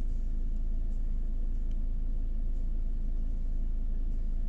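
Steady low mechanical rumble with a constant deep hum, and a few faint clicks of laptop keys being pressed.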